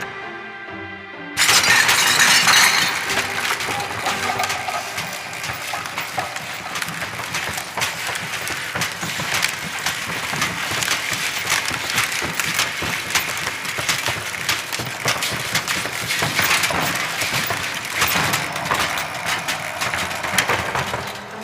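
Brief music, then about a second in a vacuum cleaner starts suddenly and loudly and runs with a dense rattling and clattering all through it; the music comes back near the end.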